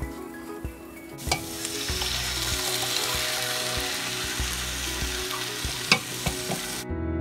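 Crushed tomatoes sizzling as they pour from a can into a hot pot of sautéed diced vegetables. The sizzle starts about a second in and cuts off suddenly near the end, with a couple of sharp clicks along the way.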